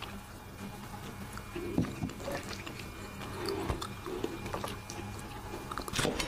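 Quiet eating sounds: chewing and swallowing, with a few soft gulps after a sip from a mug. Near the end, chopsticks click sharply against a stainless steel rice bowl.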